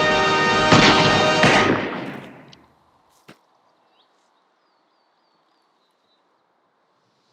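Orchestral film score with brass, stressed by two loud hits about a second and a second and a half in, then dying away within about two and a half seconds. A single sharp click follows, then near silence with a few faint high chirps.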